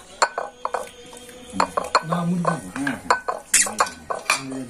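Ceramic plates and serving spoons clinking and scraping irregularly as people eat from shared dishes, with a few brief snatches of voices.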